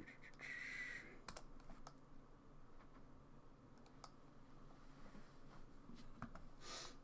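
A few faint, scattered clicks of a computer mouse against quiet room tone, with a short breathy hiss near the end.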